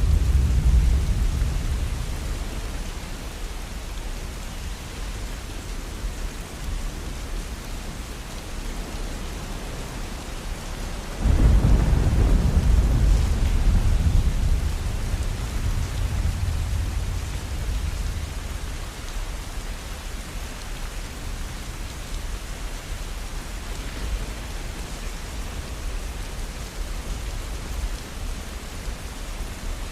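Steady rainfall, with a deep rumble of thunder that sets in suddenly about a third of the way through and slowly fades; the tail of an earlier rumble dies away at the start.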